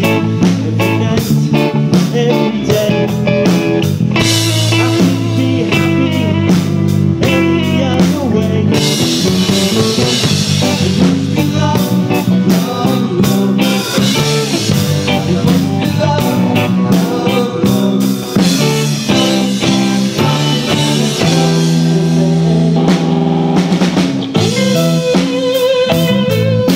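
Live band playing loudly and without a break: drum kit, bass guitar and electric guitar.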